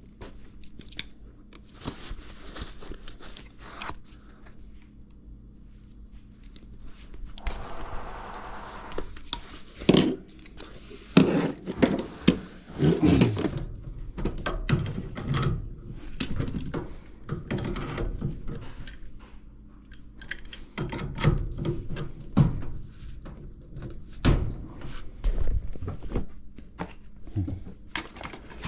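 Hands-on work at a metal furnace cabinet: irregular knocks, thunks and clatter of tools and parts, with a brief whirring about eight seconds in, over a steady low hum.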